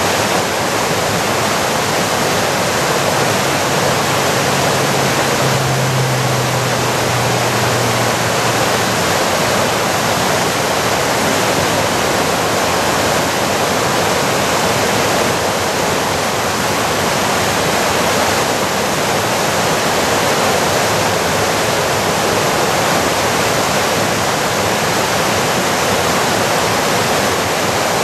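Waterfall running high with heavy whitewater: a steady, unbroken rush of falling water.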